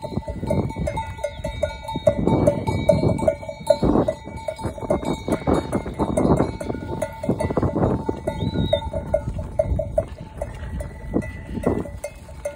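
Bells worn by a walking flock of sheep, clinking in a fast, irregular jingle as the sheep move.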